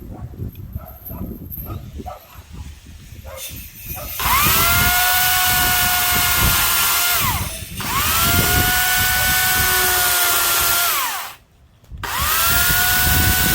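Corded electric chainsaw motor run in three bursts of a few seconds each. The motor winds up to a steady high whine and winds down each time, with a brief silent stop before the last burst. This follows handling noise in the first few seconds.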